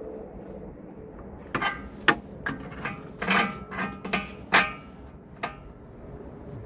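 New rear toe-adjustment bolt being worked through the rear control arm and subframe mounting: a run of about nine irregular metallic knocks and clinks with a short ring, starting about a second and a half in.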